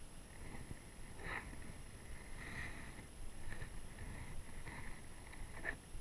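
Low wind and water noise around a small fishing boat, with a faint high whine that comes and goes and two light knocks, about a second in and near the end.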